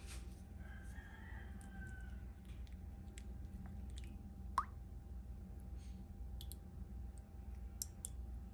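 Pastry brush stirring egg wash (beaten egg with a little milk) in a small ceramic ramekin: faint scattered clicks and taps of the brush against the dish, with one sharper tap about four and a half seconds in, over a low steady hum.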